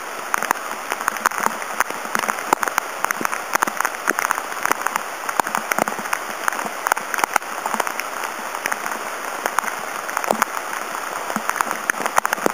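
Hail and rain falling on the forest: a steady hiss dense with irregular sharp ticks of hailstones striking.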